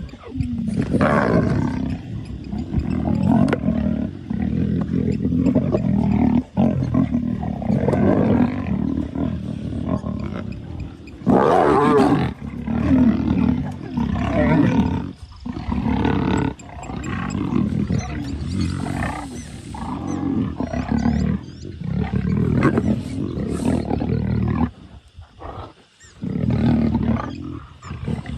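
Vitron 2-in-1 blender's electric motor running loud and buzzing, its pitch and level shifting as it blends, with several brief stops and restarts.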